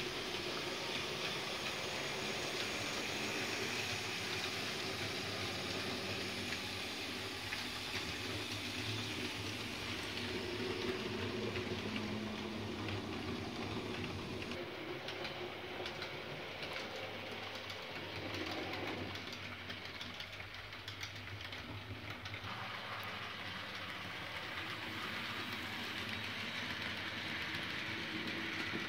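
TT-scale model trains running on a layout: a steady whirring rolling noise from the wheels on the track and the small motors, with a stretch of denser clicking about halfway through.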